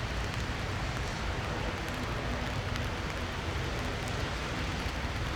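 Steady rain falling, with scattered raindrop ticks over a constant low rumble and a faint steady hum.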